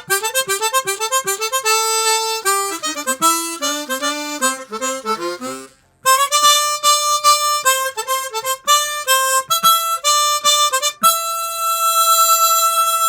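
Chromatic harmonica playing a fast lead line in octaves, standing in for an electric guitar solo. Phrases open with the 'blast' effect, a loud throat-articulated burst that glides down from a higher note onto the target note. There is a brief gap before the second phrase, and the passage ends on a long held note.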